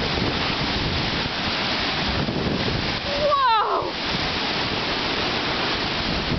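Lake waves breaking and washing over a wooden dock and pebble shore in strong wind, with wind buffeting the microphone: a steady, dense rush of noise. A little over three seconds in, a short high squeal falls in pitch and stops within about half a second.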